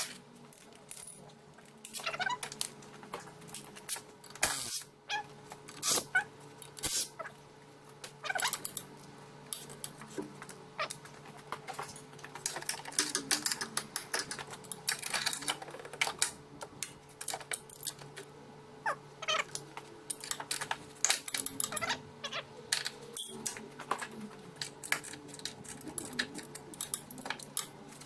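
Hand tools at work on a car's gearbox mount: bursts of rapid ratchet clicking and scattered metal clinks, with a faint steady hum underneath.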